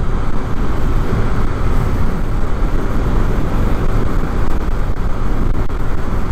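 Steady wind and road noise on the microphone of a moving Yamaha NVX motor scooter in traffic, dense and low, with no distinct engine note standing out.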